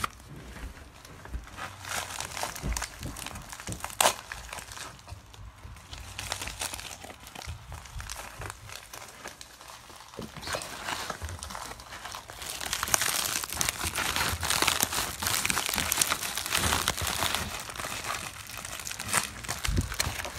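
Mailing package's plastic wrapping being crinkled and torn by hand as it is wrestled open, with a sharp snap about four seconds in; the crinkling gets louder and busier about twelve seconds in. The package is hard to open.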